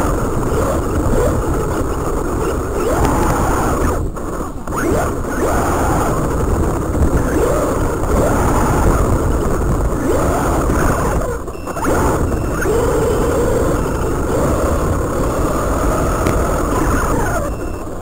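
Feiyue Eagle RC car's electric motor and gears whining, the pitch rising and falling as the throttle changes, under a heavy steady hiss. The sound drops out briefly twice.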